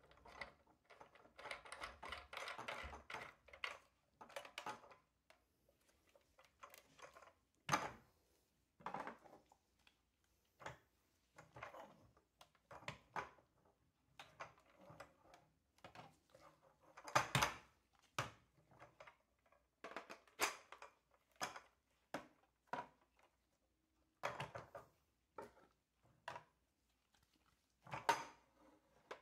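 Hard plastic toy-plane parts clicking, knocking and rattling as they are handled and pulled apart: a quick run of clicks in the first few seconds, then scattered sharp knocks, a few of them louder.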